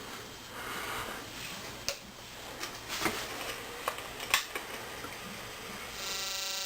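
Faint background noise broken by a few sharp clicks. About six seconds in, a steady buzz with many overtones starts up: the rebuilt DRSSTC (dual-resonant solid-state Tesla coil) with its CM300 IGBT half bridge beginning to fire.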